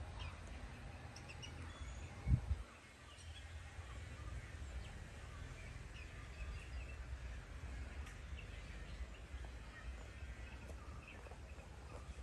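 Birds chirping in short scattered calls over a steady low rumble, with one low thump about two seconds in.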